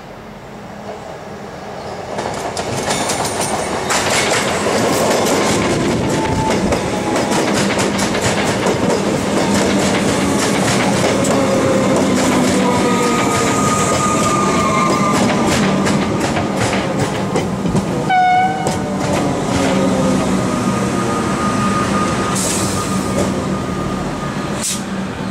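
A Comeng electric suburban train approaching and passing close by, its wheels clicking over the rail joints and points. Whining tones from the train slowly fall in pitch, and a brief pitched squeal sounds about eighteen seconds in.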